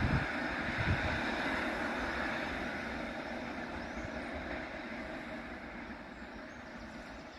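A passenger train running away down the line: the rumble of its wheels on the rails fades steadily into the distance, with the electric locomotive at the tail nearest.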